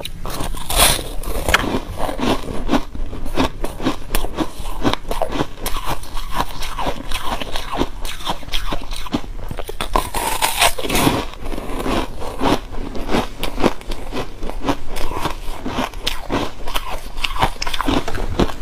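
Close-miked crunching and chewing of frosty freezer ice chunks: a steady run of sharp crackling crunches, with heavier bites about a second in and again about ten seconds in.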